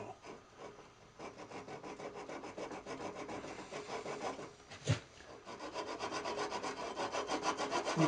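Small handsaw cutting a notch into a turned wooden train-whistle body in quick, short, even strokes, getting louder as it goes, with one sharp knock about five seconds in. This is the whistle's sounding notch being sawn down into the bore.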